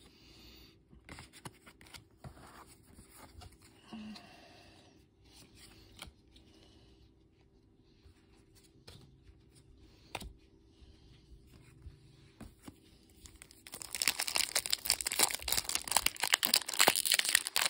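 Faint rustles and light taps of trading cards being handled and laid down. From about three-quarters of the way through, loud crackling as the foil wrapper of a Pokémon card booster pack is torn open and crinkled in the hands.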